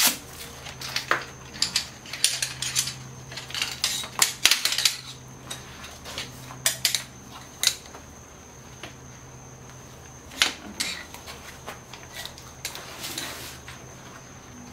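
Shock-corded 7075 aluminium poles of a folding camping-chair frame clacking and clicking as they are unfolded and snapped into their hub sockets, in irregular clusters of sharp knocks, busiest in the first few seconds, with a lull about two-thirds of the way through.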